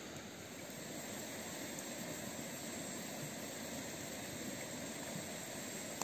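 Wood fire burning strongly in a small metal wood-burning camp stove, a steady rushing hiss of flame with hardly any crackle.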